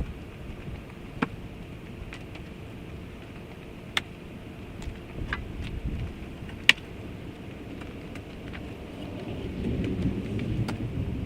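Firewood being unloaded and stacked: a few sharp knocks of wood on wood, several seconds apart, over wind rumbling on the microphone.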